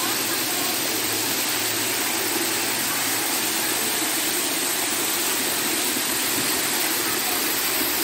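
Waterfall pouring onto rocks and into a pool: a steady, even rush of falling water.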